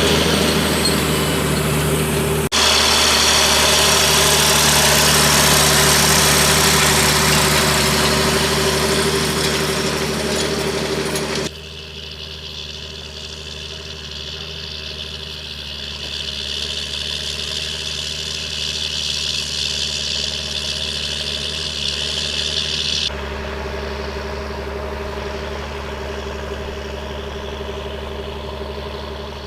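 John Deere 8320 tractor's six-cylinder diesel engine running steadily at a constant speed. Its tone and loudness change abruptly three times: shortly after the start, about a third of the way in, where it becomes quieter and duller, and again about three-quarters of the way through.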